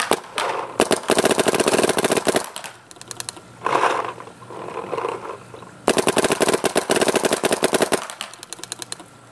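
Vicious Geo 2 paintball marker with a Unitech barrel, firing rapid strings of shots. A few shots come right at the start, then a long string about a second in, and a second string of about two seconds near six seconds in.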